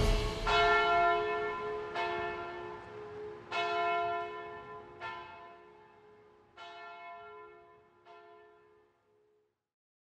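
A church bell tolling slowly, about one stroke every second and a half, six strokes in all, each ringing on after the strike, the whole fading out about nine seconds in.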